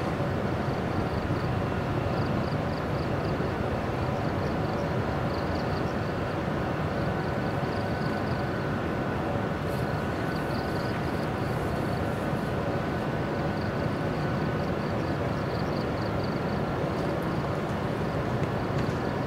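Electric locomotive standing at rest, humming steadily. Insects chirp in quick pulsing runs, high-pitched, on and off throughout.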